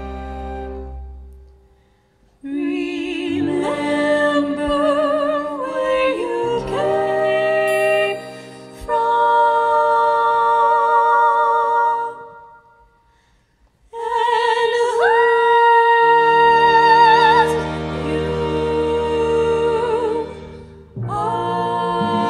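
Women singing long, held notes with vibrato in slow phrases over lower sustained notes, broken by two short silences.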